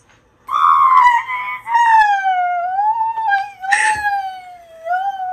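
A young woman's long, high-pitched squeal of overjoyed surprise, wavering up and down, with a quick breath about four seconds in.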